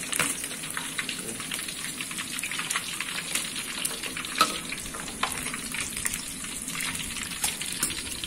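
Fish frying in hot oil in a wok: a steady sizzle with scattered crackles and pops, one sharper pop about four and a half seconds in.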